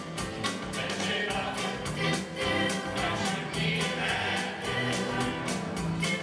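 A choir singing a 1970s song, with a band behind it keeping a steady, quick drum beat.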